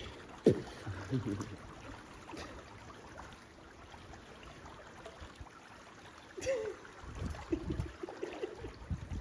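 Swimming-pool water trickling and lapping, with people's voices now and then and a short loud sound about half a second in.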